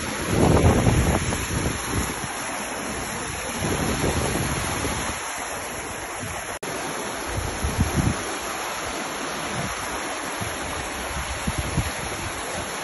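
Floodwater rushing through a breach in an earthen embankment, a steady loud rush of water, with gusts of wind buffeting the microphone.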